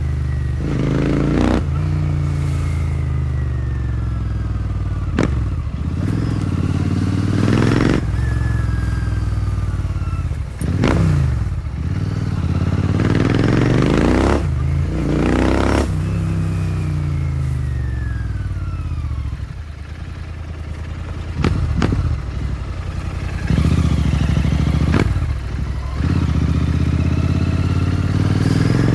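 Royal Enfield Continental GT650's parallel-twin engine through a Powerage short-cone aftermarket exhaust, ridden on the road. The revs rise and fall again and again as the bike is accelerated and eased off, with a quieter stretch at lower revs about two-thirds of the way through.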